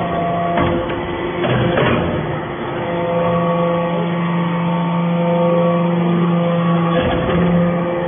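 Hydraulic copper-shavings briquetting press running: a steady motor and pump hum, with a few knocks in the first two seconds and another about seven seconds in.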